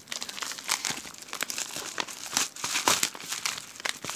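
A mailing package being torn open and its wrapping crumpled by hand: irregular crinkling and crackling with short tearing strokes.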